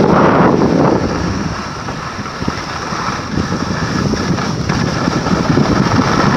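Wind rushing over the microphone while skiing downhill, with the steady hiss and scrape of skis sliding on hard-packed snow; it eases a little about two seconds in, then builds again.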